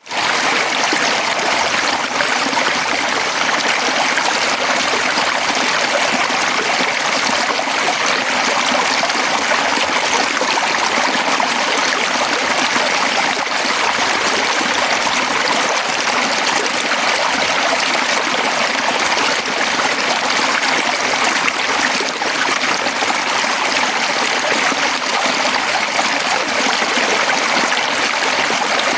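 Fast-flowing stream rushing steadily over rocks.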